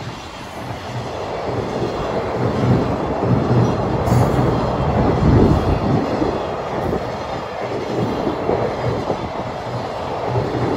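A long freight train of loaded container flat wagons rolling past close by: a steady rumble of steel wheels on rail with a repeated clatter as the wheelsets cross rail joints, loudest in the middle.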